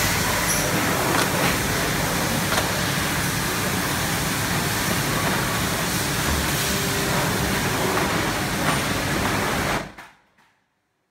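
Food-packet conveyor line running: a steady, noisy mechanical hum of belt and machinery, with a few faint clicks, that cuts off almost ten seconds in.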